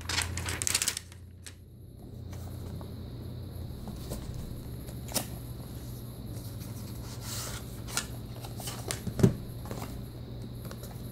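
Hands handling cardboard retail packaging: a burst of rustling and sliding at the start, then scattered light taps and knocks as a small box and a power adapter with its cable are lifted out. The loudest is a single thump about nine seconds in, over a low steady hum.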